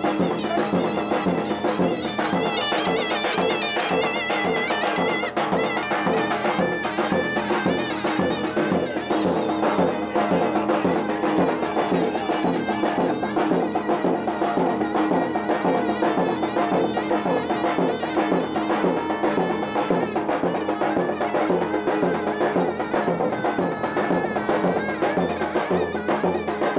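Traditional folk music: a shrill reed wind instrument plays a continuous, ornamented, wavering melody over a steady drum beat.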